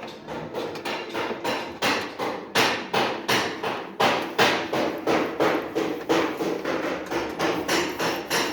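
Hammer striking metal again and again, about three blows a second, with a ringing tone carrying between blows.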